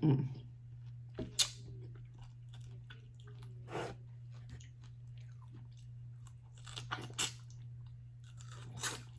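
A person chewing and crunching food, with a handful of sharper crunches spread through, over a steady low hum.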